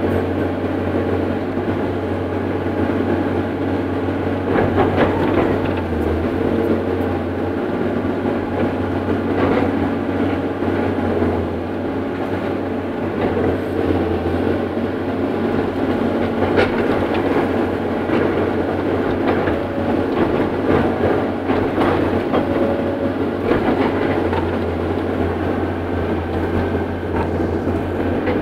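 Caterpillar 318C excavator heard from inside its cab: the diesel engine running steadily under work, with scattered knocks and rattles from the cab and boom as the machine digs and swings.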